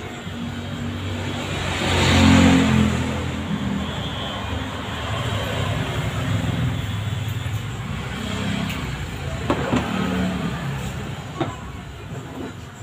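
A motor vehicle engine, heard as a low hum that swells to its loudest about two seconds in and then carries on more softly. A couple of sharp clicks come later.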